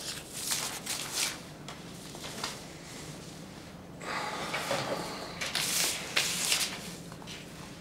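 Paper being handled and a pencil writing on it: a few short scratches in the first second or so, then a busier stretch of rustling and scratching from about halfway.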